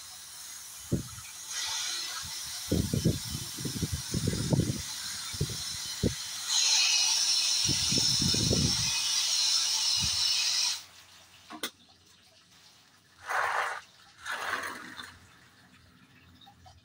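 Garden hose spray-gun nozzle hissing as it mists water over a seedling tray. The spray gets louder about six seconds in and cuts off suddenly near eleven seconds, with low knocks of handling in the first part. Two short rushes of sound follow near the end.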